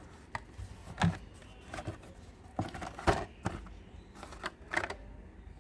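Carded Hot Wheels cars being handled: plastic blister packs and cardboard backing cards clicking and knocking against each other in a loose series of short, sharp clacks.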